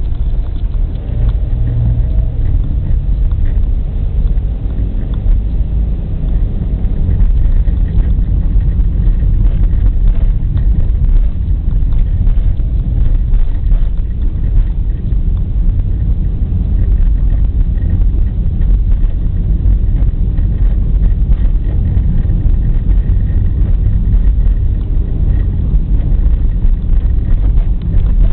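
Vehicle driving along a road, a steady low rumble of engine, tyre and wind noise buffeting the microphone, growing a little louder about eight seconds in.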